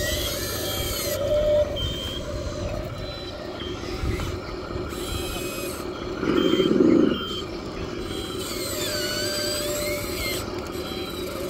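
Radio-controlled model excavator running its motors as the arm and house swing, a fast mechanical whirr with short beeps. About six seconds in, a loud brief rush as the bucket dumps its load of dirt into the dump truck's bed.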